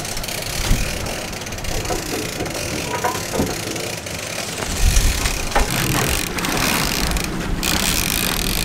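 Wind buffeting the microphone on an open boat over choppy water, a steady rushing noise that turns into heavier low rumbling gusts about five seconds in.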